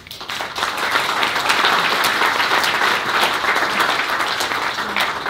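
Audience applauding: many hands clapping together, swelling within the first second and easing off near the end.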